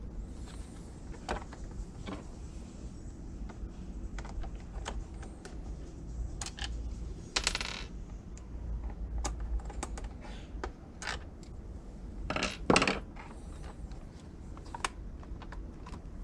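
Scattered small clicks and clatters of hand work on a plastic instrument cluster housing and its small screws, with a short scrape about halfway through and two sharper knocks near the end.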